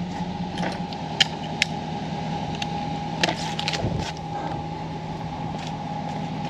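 Steady low hum with a higher whine from the EGO cordless pressure washer standing by between sprays, with scattered light metallic clicks as the 15-degree nozzle tip is handled and fitted to the wand.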